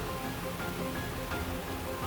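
Background music with short held notes over a steady hiss.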